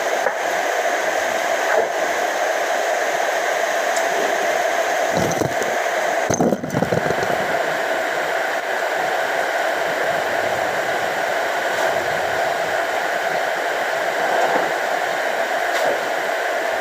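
A steady motor whir with a constant pitch, interrupted briefly by a low rumble about six seconds in.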